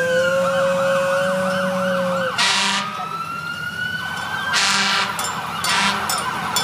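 Several fire engine sirens sounding together: a fast yelp, a steady held tone that stops a little over two seconds in, and a slow rising wail. Three short, loud blasts come about two and a half, four and a half and nearly six seconds in.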